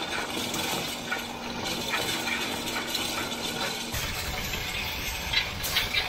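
Tractor-pulled wheel rake sweeping cut hay: a steady rustling hiss of the spinning tine wheels combing the dry windrows, over a steady engine hum. About four seconds in the hum drops away and a low rumble takes its place, with a few sharp clicks near the end.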